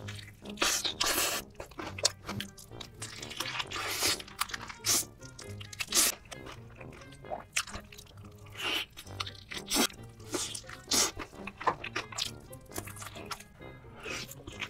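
Repeated crisp crunching bites and chewing of fried chicken drumsticks coated in red sauce and cheese sauce, at an irregular pace, over background music.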